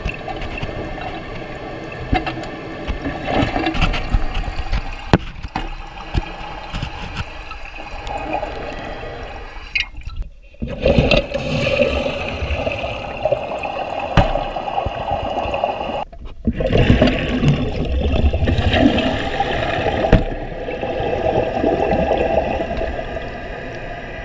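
Toilet tank emptying in a quick (half) flush through a Danco HydroRight dual-flush valve: water rushing and gurgling out. It is a partial flush that drains only part of the tank. The sound breaks off twice and starts again.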